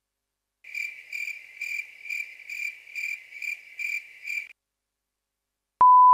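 A cricket-chirping sound effect, evenly repeated at about two chirps a second after dead silence, used as the comic 'awkward silence' gag. Near the end it stops, and after a short click a loud, steady, single-pitch beep begins.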